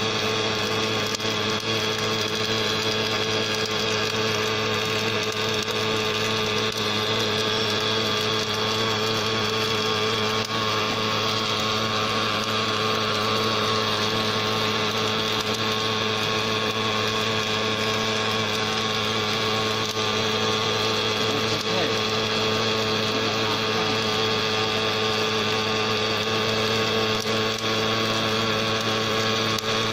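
Automatic hydraulic-cylinder welding machine running with a steady mechanical hum and a constant high whine, unchanging throughout.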